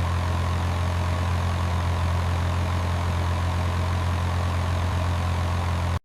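A steady, low engine-like drone, like an idling motor, holding unchanged and then cutting off suddenly at the very end.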